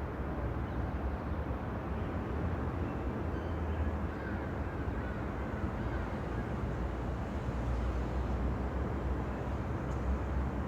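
City ambience: a steady low rumble of distant traffic that stays level throughout.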